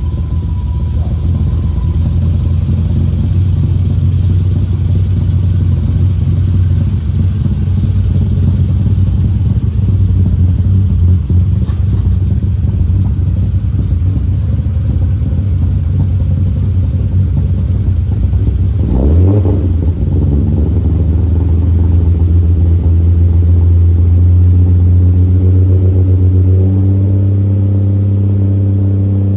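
BMW E30's M20B25 2.5-litre straight-six running at a steady idle just after start-up. There is a brief break in the sound about nineteen seconds in, and the note fills out with more overtones near the end.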